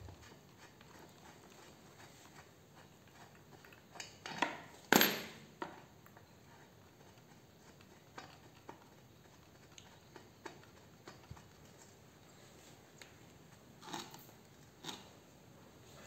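Small clicks and clinks of hands unscrewing a chainsaw's top cover and lifting it off, with a louder clatter about five seconds in and two more knocks near the end.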